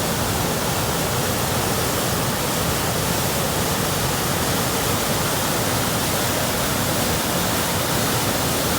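Small waterfall on a rain-swollen creek, water rushing in a dense, unbroken roar.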